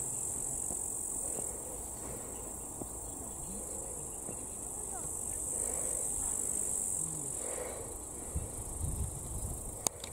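Insects chirring: a steady high-pitched buzz that swells and eases a little, with no break.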